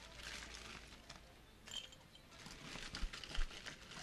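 Crushed ice crunching and rattling as it is scooped out of a plastic bag into a tall glass, with the bag crinkling. Two dull knocks come about three seconds in.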